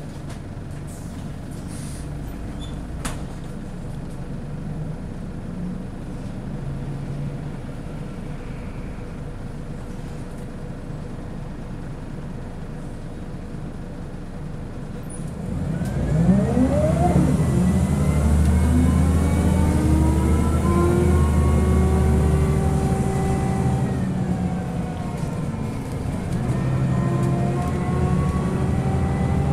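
Scania L94UB bus heard from inside the saloon: the diesel engine runs at a low, steady idle hum, then about halfway through the bus pulls away loudly. The engine note and a whine from the ZF Ecomat 4-speed automatic gearbox climb, level off, dip briefly and climb again near the end.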